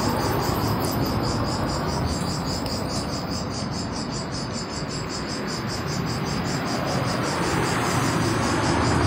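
Insects chirping in a fast, steady pulsing rhythm over a constant rushing background noise.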